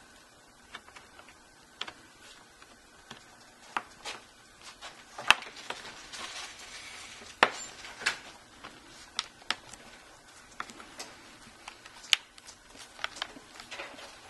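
Irregular sharp clicks and taps of a Kindle Fire HD's back cover being pressed on by hand, its clips snapping into place around the edges; the loudest click comes about five seconds in.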